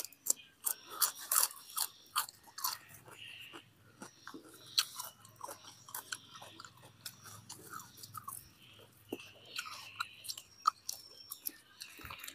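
A person chewing close to the microphone: braised pork intestine wrapped in lettuce and herbs, with wet smacking and crisp crunches. The crunches are dense in the first couple of seconds and sparser after.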